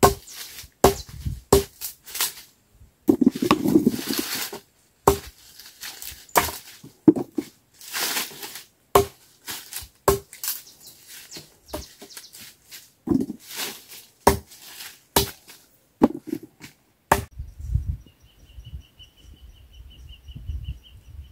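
A blade chopping cassava stems into short planting cuttings on a wooden board: a long series of sharp chops, one every half second to a second, with a couple of longer scraping rustles among them. Near the end the chopping stops and a faint rapid chirping trill is heard over low rumbling noise.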